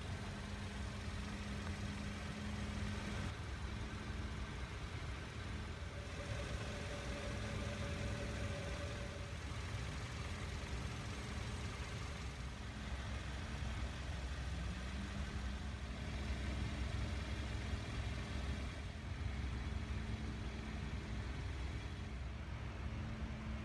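A car running, heard from inside: a steady low rumble with an engine hum that dips and slides back up in pitch about halfway through.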